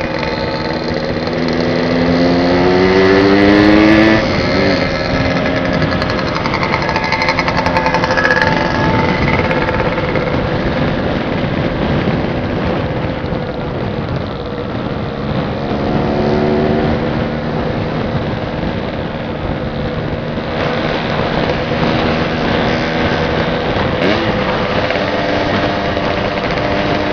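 Motorcycle engine heard from on board while riding, its pitch rising several times as it accelerates, with wind rushing over the microphone.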